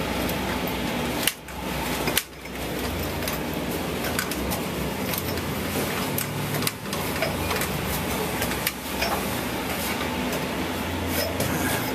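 Manhole ventilation blower running steadily, a low hum and rush of air pushed down its flexible duct into the vault, with a few light knocks from climbing down the ladder.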